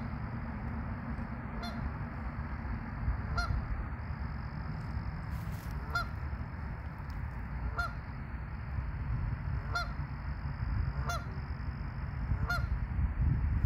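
Geese honking: short single calls about every one and a half to two seconds, over a steady low rumble.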